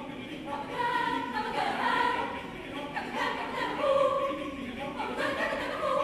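Mixed choir of men and women singing a cappella, holding sustained chords that swell, loudest about two and four seconds in.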